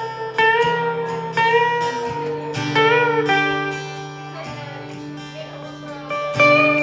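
Instrumental guitar music: single melody notes picked one after another and left ringing, over held bass notes that shift every second or two.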